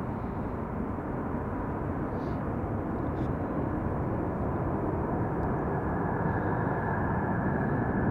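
The four smoky JT3D/TF33 low-bypass turbofans of an E-8 Joint STARS (Boeing 707 airframe) jet rumbling steadily as it flies in low. It grows gradually louder, and a high engine whine comes up near the end.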